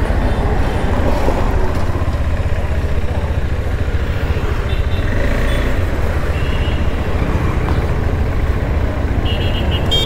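KTM Adventure motorcycle's single-cylinder engine running near idle with a steady low rumble.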